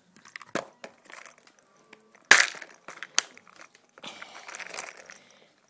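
Handling noise from a plastic tackle box of small parts and stickers: scattered clicks and a sharp knock about two seconds in, then a rustle as an Apple sticker is picked up.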